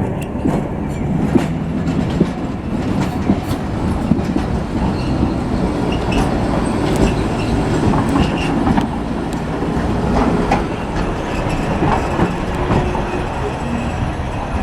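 Streetcar running past on city tram tracks: a steady rumble of motor and wheels, with repeated sharp clacks as the wheels cross rail joints and points.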